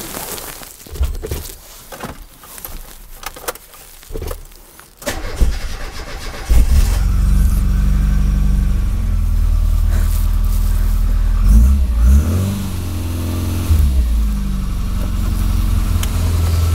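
Austin Metro 1275cc A-Plus four-cylinder engine with an SU carburettor, cold-started on a freezing day. After a few scattered knocks, the starter cranks briefly and the engine catches about six and a half seconds in. It then runs steadily, with the revs rising and falling once near the middle before it settles back to an even idle.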